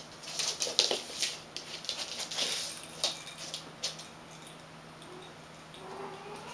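Persian kittens and their mother scampering and pouncing on a hard floor: a quick run of paw patters, scuffles and light thumps, busiest in the first four seconds, then quieter.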